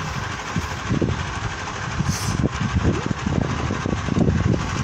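An engine running steadily, with low rumble on the microphone.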